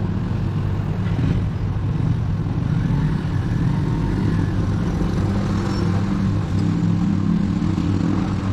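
A motor or engine running steadily with a low hum, its speed unchanged throughout.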